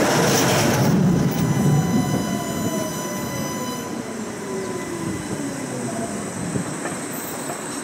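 A tram rushes past close alongside for about the first second. Then the tram being ridden runs on its rails with a motor whine that falls steadily in pitch as it slows toward a stop.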